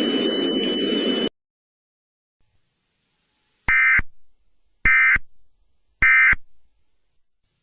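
Emergency Alert System end-of-message signal: three short, identical buzzy digital data bursts about a second apart, the SAME 'NNNN' code that marks the alert as over. Before them, a hissy background bed with two steady high tones cuts off abruptly about a second in.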